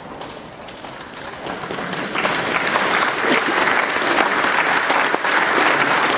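Audience applauding, the clapping swelling over the first two seconds and then holding steady.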